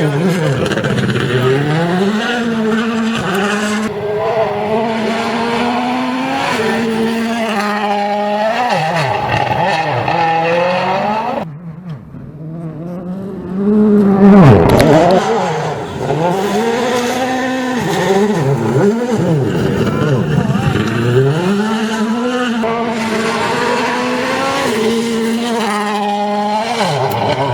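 WRC rally car's turbocharged four-cylinder engine revving hard and shifting up and down through the gears, its pitch climbing and dropping in steps. About twelve seconds in, the sound falls away for a couple of seconds. It then comes back as a loud close pass, the loudest moment.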